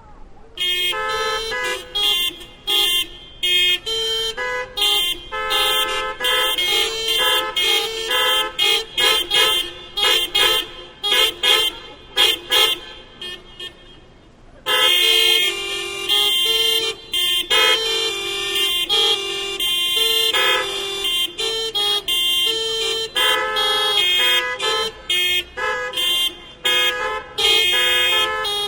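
Many car horns hooting and honking in a rapid interlocking rhythm, a hocket in which the different horn pitches alternate and overlap. The horns start about a second in, pause briefly a little before halfway, then resume.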